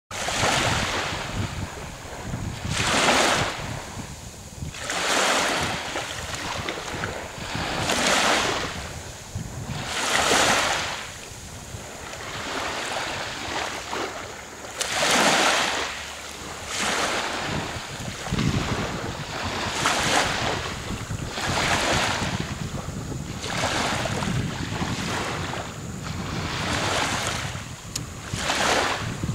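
Small waves washing onto a beach, a swell of water noise every two to three seconds that rises and fades, with wind buffeting the microphone as a low rumble that grows stronger later on.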